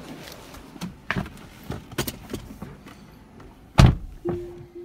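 A Tesla Model S driver's door being handled: several light knocks and clicks while getting into the seat, then the door shuts with one loud thump near the end. Right after it a steady tone starts as the car audio comes on.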